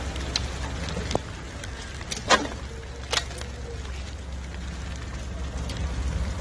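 Steady low outdoor rumble with a few sharp clicks and knocks, the loudest about two and a half seconds in.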